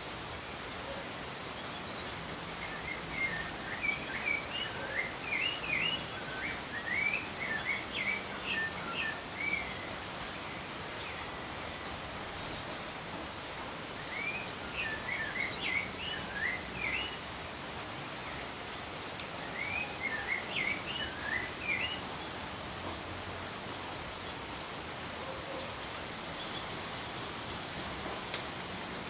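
Steady rain falling, with a bird singing over it in three bouts of quick, high chirping notes: the first a few seconds in and the longest, the others about halfway and two-thirds of the way through.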